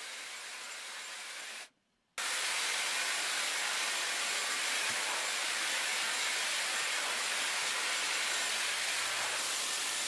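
Dyson Airwrap blowing air, a steady hiss of airflow. It cuts out for about half a second just before two seconds in and comes back louder.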